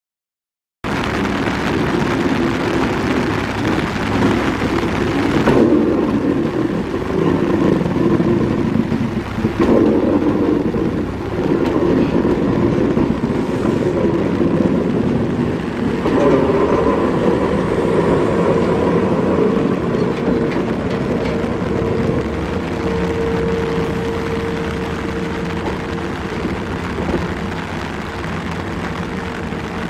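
Yoro Railway 600 series electric train running past and on into the station platform, a loud steady rumble of wheels and running gear. A steady whine sets in about halfway through and holds as the train moves off along the platform.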